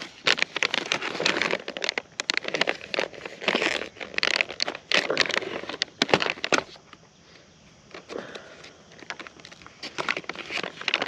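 Crinkling and rustling of a foil-lined backpacking meal pouch being handled, with dense crackles for the first six seconds or so, then quieter and sparser.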